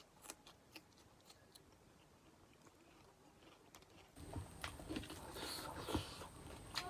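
A person chewing food, with wet clicks and smacks. The chewing is faint for the first four seconds and grows louder from about four seconds in.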